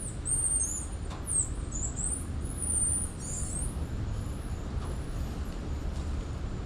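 Rapid, high-pitched chirping calls from small animals in the forest, dense for the first three seconds or so and then dying away. Under them runs a steady low rumble.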